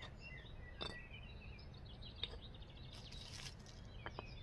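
Songbirds singing faintly, with a few sharp clicks of stones knocking together as a small stone cairn is stacked. The loudest click comes about a second in.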